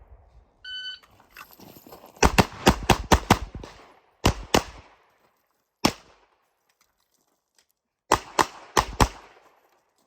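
Shot timer beep, then a Glock G34 9mm pistol firing rapid strings of shots: a fast burst of about seven shots about two seconds in, a quick pair, a single shot, then another fast burst of about five shots near the end.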